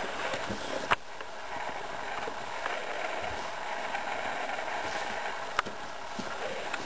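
A baby's hands and knees scuffing and knocking on a cardboard box as it crawls inside it, with two sharp knocks, about a second in and near the end.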